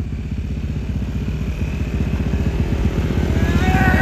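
ATV engine running with a rapid low putter as the quad is ridden, getting louder toward the end as it comes closer.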